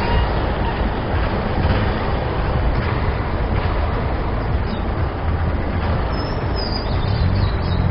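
Honda CG 125 Fan motorcycle running at low speed over block paving: a steady, rough, noisy engine-and-road rumble. A brief high-pitched squeal comes in about six seconds in.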